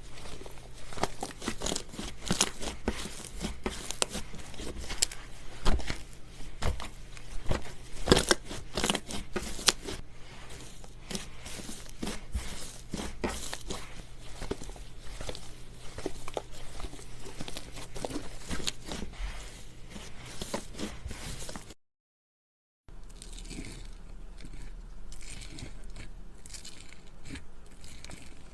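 Crunchy slime being pressed and squeezed by hand, giving dense, fine crackling and popping clicks. Near the end, after a brief gap, softer slime squishing comes in at a steady rhythm of about two presses a second.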